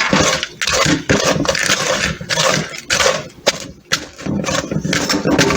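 Hard lumps of brown sugar being crushed and scraped apart in a cup: repeated rough scraping strokes, a little faster than one a second.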